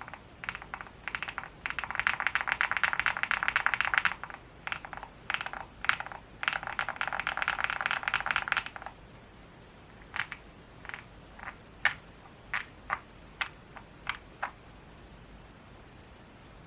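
Thocky, creamy custom mechanical keyboard, an Akko SPR67 with linear switches on a spring tray mount, being typed on: fast continuous typing in runs with short pauses, then about ten single key presses spaced apart.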